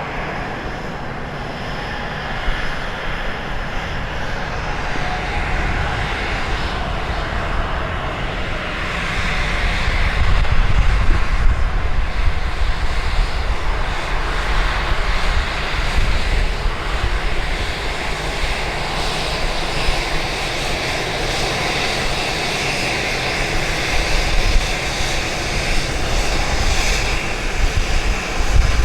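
Airliner engine noise at the airport, a steady rushing roar that grows louder about nine seconds in. Strong wind buffets the microphone with an uneven low rumble underneath.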